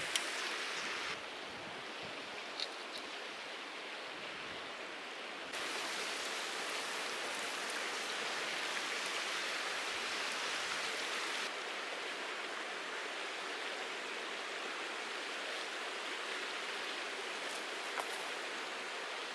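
Steady rush of a mountain stream's flowing water, its level jumping abruptly three times, with a few faint clicks.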